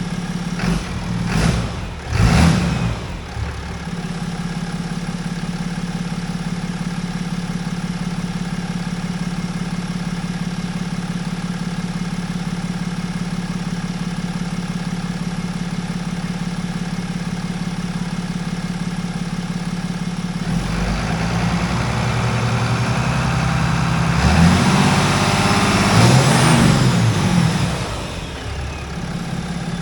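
A 6.7-litre Cummins turbo-diesel idles steadily after its first start on a freshly installed intake. It gets a couple of quick throttle blips near the start and a longer rev-up about two-thirds in, with a high whistle rising and falling, before settling back to idle.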